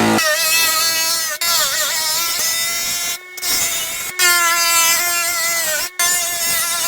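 Small electric power tool, such as a drill or polisher, running with a steady high whine whose pitch dips briefly now and then as it bears on the work. The sound breaks off abruptly several times.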